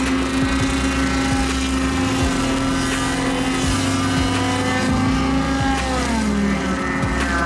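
Engine running steadily, its pitch shifting, with a falling glide about six seconds in.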